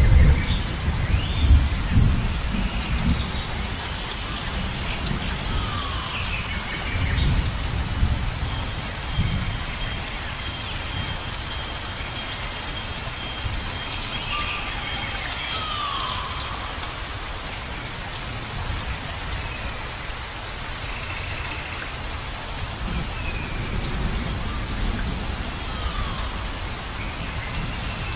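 Rainforest ambience of steady rain, with low thunder rumbles in the first few seconds and again about seven seconds in. Birds call throughout in short whistles that fall in pitch.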